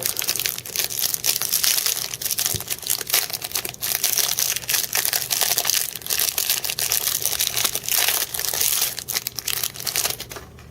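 Plastic wrapper of a trading-card pack crinkling and crackling as it is handled and torn open, a continuous rustle full of small crackles that stops shortly before the end.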